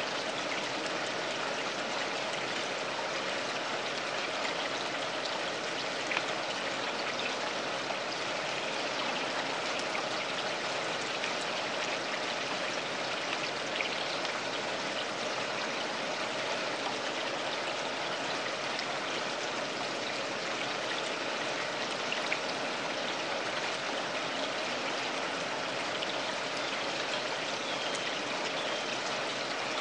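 Steady running, splashing water in a home pond, unchanging throughout, with a few faint brief clicks.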